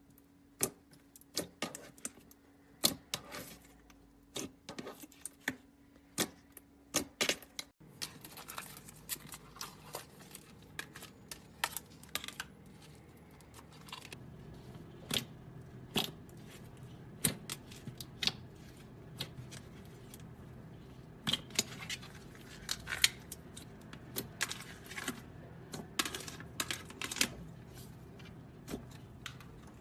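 Slime being squeezed and poked by hand, giving quick crisp clicks and pops at an irregular pace, often several a second. The background changes abruptly about eight seconds in, and the clicking carries on after it.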